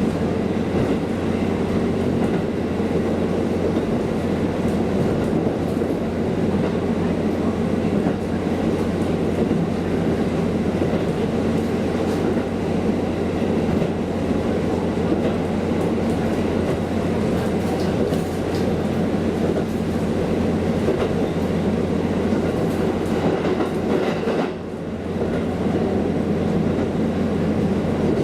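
A JR KiHa diesel railcar running steadily along the line, its engine drone mixed with the clickety-clack of wheels over rail joints. It briefly goes quieter about 24 seconds in.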